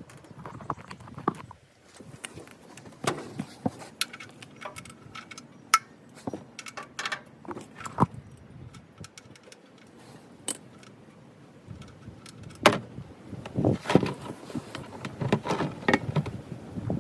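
Irregular clicks, knocks and light metallic clinks of things being handled, with a busier run of knocks near the end.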